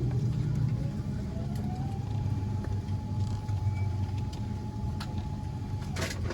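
A steady low engine hum, with a thin whine that rises about a second and a half in, holds steady, and falls away near the end. A few faint clicks.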